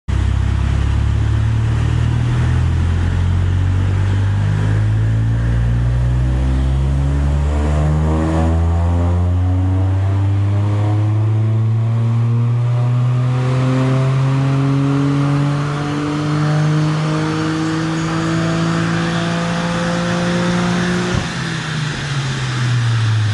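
Toyota GR Yaris's turbocharged 1.6-litre three-cylinder engine on a rolling-road dyno run, heard through a Mongoose GPF-replacement exhaust with ceramic tailpipes. The exhaust note climbs steadily in pitch for about twenty seconds as the revs rise. Near the end a single sharp crack marks the throttle closing, and the revs fall quickly.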